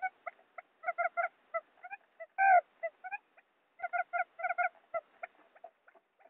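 Quail calls played as a lure for trapping wild quail: short notes in quick runs of several a second, broken by brief pauses, with one louder drawn-out note about two and a half seconds in.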